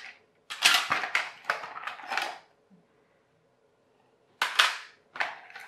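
Jigsaw-shaped toy track pieces and small plastic parts being handled in a cardboard box, giving a run of clatters and rustles for about two seconds, a pause, then a few more knocks near the end.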